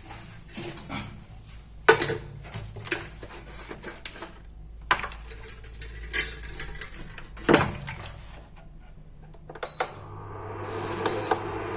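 Knocks and clatter of a pot being handled on an induction cooker, then short high beeps near the end as it is switched on. These give way to the cooker's steady hum and fan noise as it starts heating.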